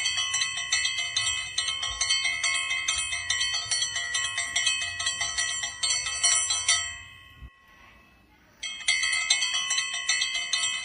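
Brass pooja hand bell rung rapidly and steadily, about five or six strikes a second. The ringing stops about seven seconds in and starts again about a second and a half later.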